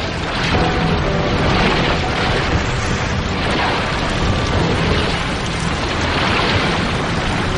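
Documentary sound effects of surging water and breaking ice: a loud, dense rumbling rush, with background music faintly underneath.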